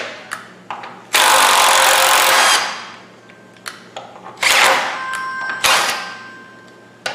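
DeWalt cordless drill/driver spinning out the fender bolts at the front of the rocker panel: one run of about a second and a half starting about a second in, then two shorter bursts that trail off as the motor spins down, with small clicks of handling between.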